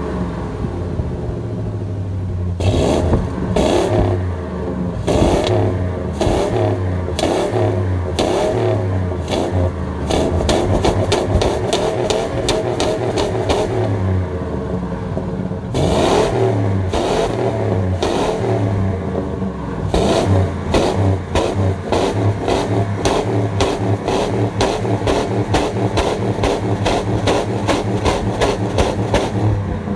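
Ford F-150's 5.4-litre V8 exhaust heard right at the tailpipe, revved again and again in short blips with the revs rising and falling each time. The blips come quicker in the second half.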